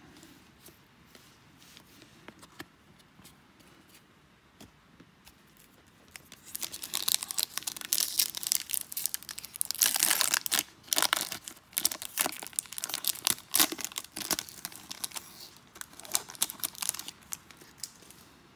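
A foil-wrapped 2022 Topps Series 1 baseball card pack being torn open, its wrapper crinkling loudly. The tearing starts about six seconds in and is loudest a few seconds later. Before it there are only a few faint ticks.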